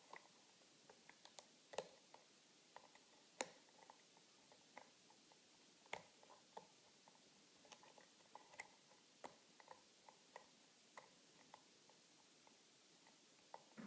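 Faint, irregular metallic clicks and ticks from a lock-pick hook working the pin stack of an American Lock Company padlock during single-pin picking, under light tension from a pry-bar tension tool. The lock has no security pins, so the pins give little feedback as they are lifted and set.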